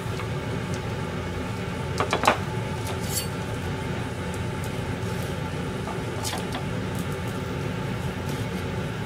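A kitchen knife cutting a green vegetable on a wooden cutting board: a few scattered sharp taps of the blade against the board, over a steady low hum.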